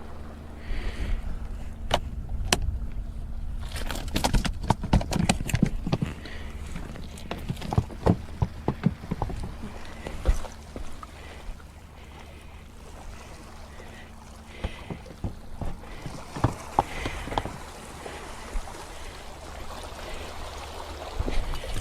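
Seawater sloshing among rocks under wind noise on the microphone, with two stretches of rapid, irregular clicks and knocks.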